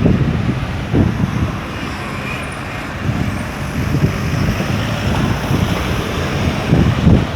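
Street traffic running past, cars and heavier vehicles together, a steady low rumble with short uneven surges.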